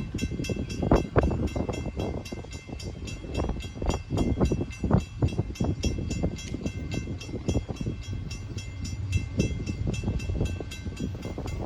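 Grade-crossing warning bell ringing rapidly, about four strikes a second, as the crossing gates come down, and stopping near the end. Underneath, the low rumble and irregular clanks of a slow-moving freight train.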